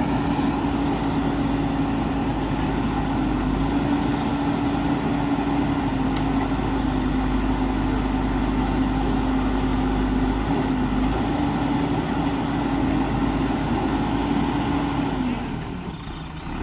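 Heavy diesel engine running steadily at constant speed, with a low rumble under an even hum. It dies down about a second before the end.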